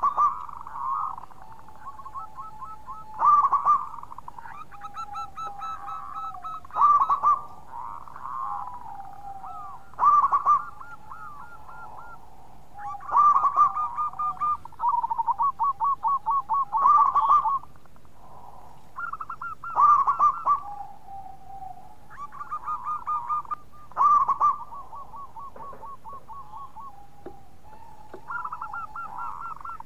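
Zebra doves (perkutut) cooing: phrases of rapid staccato coo notes repeated every three to four seconds, with more than one bird calling over one another at slightly different pitches.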